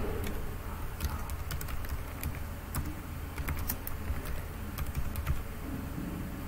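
Typing on a computer keyboard: a run of irregularly spaced key clicks as two words are typed, mostly between about one and five seconds in.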